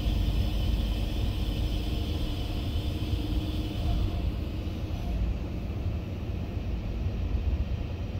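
Komatsu excavator's diesel engine running at low idle, heard inside the cab, as the upper structure swings around. A steady low rumble with a higher hiss that fades out about five seconds in.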